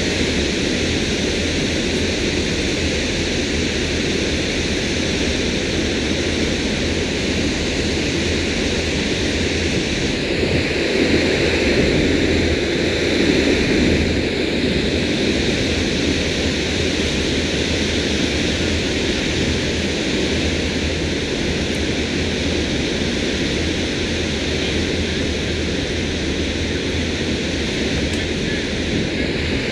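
Steady rushing noise of wind and water at the bow of a slowly moving cruiser, with the low rumble of its Mercruiser 7.4 inboard engine underneath. It swells a little around the middle.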